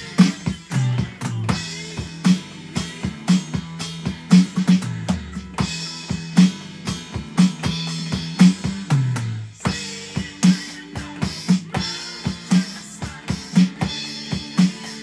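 Electronic drum kit played in a steady hard-rock groove of kick, snare and cymbal hits, over a backing track with bass guitar and guitar. Near the middle the bass slides down in pitch.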